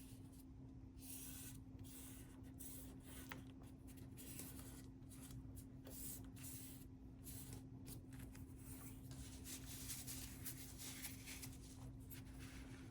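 Faint rustling and rubbing of cardstock being handled and pressed down as a paper pocket is glued in place, over a steady low hum.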